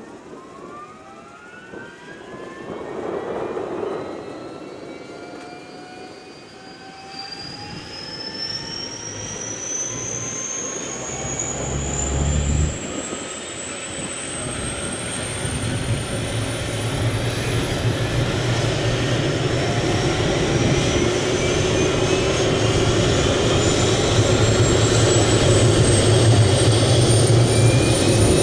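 MD530F helicopter's turboshaft engine spooling up: a whine that climbs steadily in pitch and grows louder, with a low rotor beat building from about halfway through.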